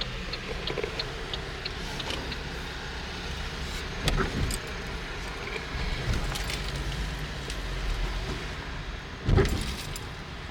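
Car engine and road noise heard from inside the cabin while driving, a steady low rumble. There is a short thump about four seconds in and a louder one near the end.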